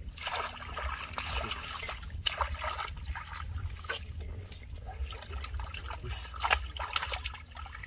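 Hands splashing and sloshing through shallow muddy water in quick, irregular strokes, while groping for fish by hand. A steady low rumble runs underneath.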